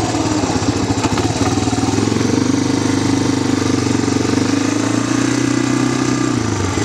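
ATV engine running under way at low speed. Its note rises about two seconds in, holds, and falls away near the end. Wind noise rushes over the microphone.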